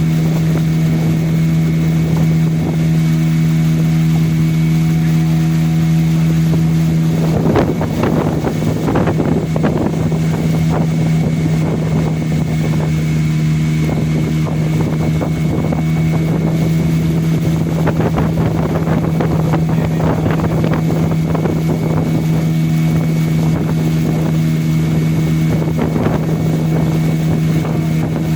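Motorboat engine running steadily at an even pitch. About seven seconds in, a rough rushing noise of wind and water joins it and keeps coming and going.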